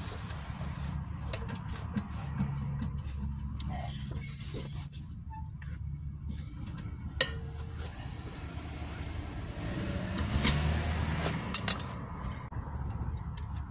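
A steady low engine rumble, swelling briefly about ten seconds in, with sharp metallic clinks and clanks from tire-change tools and lug nuts, the loudest cluster of them about four to five seconds in.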